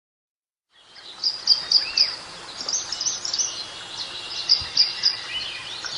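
Birds singing over a steady background hiss, fading in after a moment of silence: one bird repeats short high chirps in runs of three or four, with a few other calls between.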